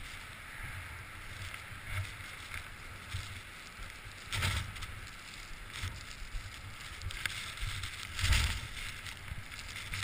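Blizzard wind buffeting a helmet-mounted camera's microphone: a steady hiss over a low rumble, with two stronger gusts, one about four and a half seconds in and a louder one about eight seconds in.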